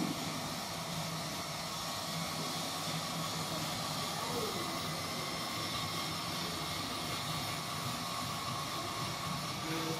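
A steady, even hum and hiss with no distinct events.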